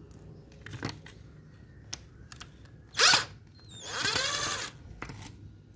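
Power drill with a screwdriver bit run in two short bursts, a brief one about three seconds in and a slightly longer one just after, its motor whine rising and falling as it backs a housing screw out of a Makita angle grinder. A few light knocks come before it.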